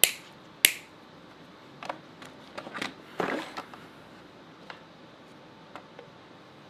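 Cable cutter snipping through power cable: two sharp snaps less than a second apart right at the start, then softer clicks and the rustle of cable being handled, with a few faint ticks later.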